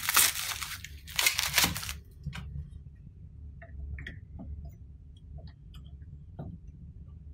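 Plastic bag crinkling loudly for about two seconds as a part is pulled out of it, then a few faint clicks and taps as a 3D printer's spool holder is set onto its frame.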